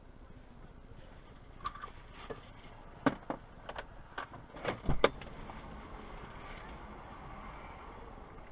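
Faint street ambience heard through a dashcam in a stopped car, over a steady high electronic whine. A run of sharp knocks and clacks comes between about one and a half and five seconds in, and a single loud thump comes right at the end.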